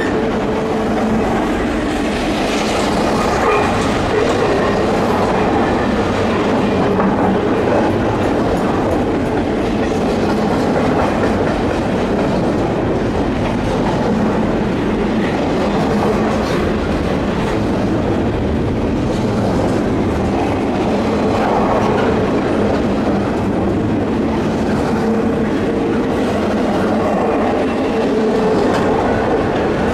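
Freight train cars rolling past at steady speed: a continuous rumble of steel wheels on rail with clickety-clack over the rail joints.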